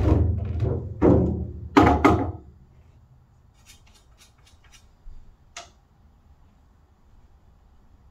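Pool balls knocking against each other and the cushions after a shot, with a low rolling rumble under several sharp knocks in the first two and a half seconds. A few faint clicks and two light taps follow later.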